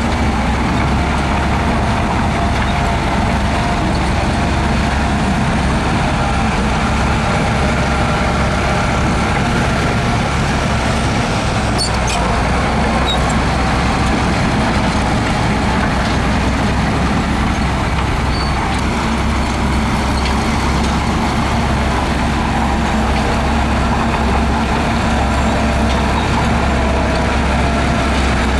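Heavy earthmoving machine's diesel engine running with a steady, unbroken drone, with a couple of faint clicks about twelve seconds in.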